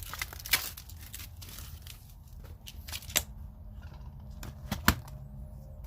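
Plastic packaging crinkling, with scattered sharp clicks, as a boxed set of small bolts and bagged parts is handled. A sharp click about three seconds in and another near the end stand out, over a low steady hum.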